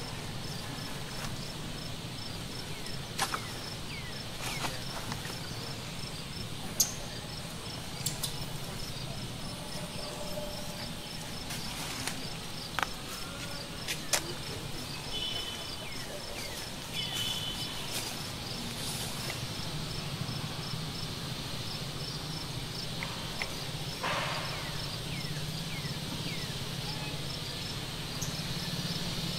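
Insects trilling steadily in an even, fast pulse over a low outdoor hum, with scattered sharp clicks and a few brief chirps.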